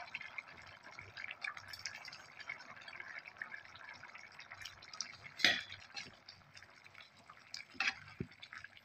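Curry simmering in a frying pan: a steady patter of small bubbling pops. A couple of louder clunks and splashes come about halfway through and near the end, as brinjal pieces drop in and a wooden spatula stirs.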